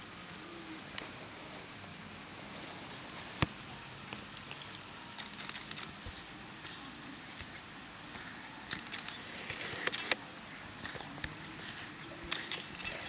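Steady hiss of light rain, with single drops clicking near the microphone and short clusters of rapid pattering ticks about five, nine to ten and twelve seconds in.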